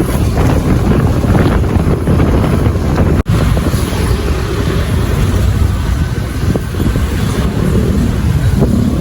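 Wind buffeting the microphone on a moving vehicle, over steady engine and road noise. The sound cuts out for an instant about three seconds in.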